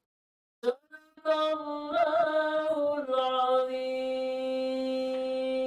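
A woman's voice chanting Quran recitation in the melodic tilawah style, with a wavering ornamented passage about two seconds in, then one long held note near the end.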